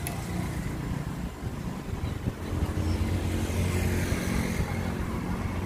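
Street traffic: a motor vehicle's engine running and passing close by, growing louder a little after midway and then easing off.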